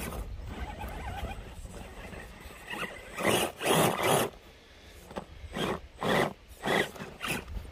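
FTX Kanyon RC scale crawler, fitted with a 15-turn motor, grinding over rock and dirt in short throttle blips. Its tyres and drivetrain make about six gritty scraping bursts, coming about every half second near the end. Low wind rumble on the microphone lies underneath.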